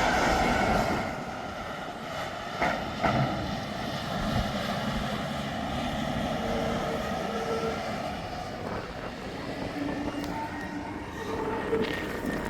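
Steady rumble of vehicle engines, with two short knocks about three seconds in.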